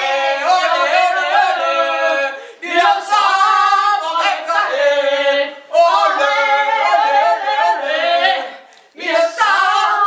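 Women singing loudly together with no instruments, in held phrases about three seconds long broken by short pauses.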